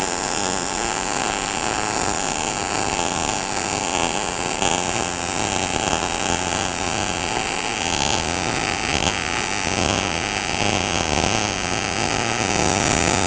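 MIG welding arc from an ESAB Rebel 235 running a downhill root pass in a groove at 230 inches per minute wire feed in sMIG mode, about 18 volts and 110 amps. It is a steady, unbroken crackling hiss: a tight, crisp arc that never sputters.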